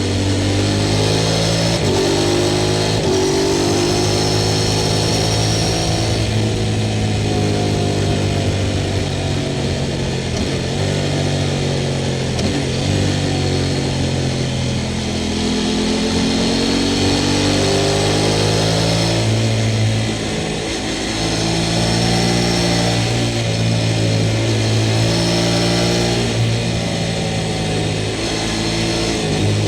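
Sport motorcycle engine under way, revving up and easing off repeatedly, its pitch climbing and falling several times.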